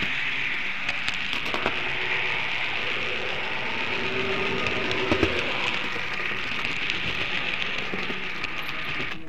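Märklin model train running along the track, heard from the camera riding on it: a steady rushing rattle of wheels on rail, with scattered clicks over rail joints and points, the loudest about five seconds in.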